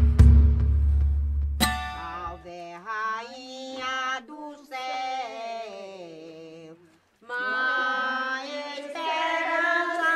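Music: a deep bass beat that cuts off about two seconds in, then a voice singing a slow, wavering melody, breaking off briefly about seven seconds in before going on.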